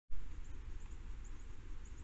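Trail camera outdoor ambience: a steady low rumble and hiss, with faint, short high chirps now and then, starting abruptly as the recording begins.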